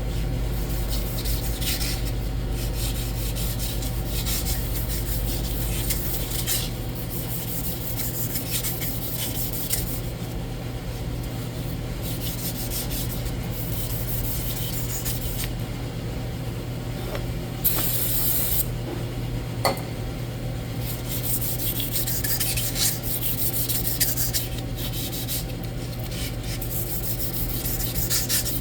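Emery cloth rubbing against a steel hydraulic control valve spool, a light hand polishing to take off sharp edges and smooth the sealing surface; the scraping comes in spells of strokes with short pauses between. A steady low hum runs underneath.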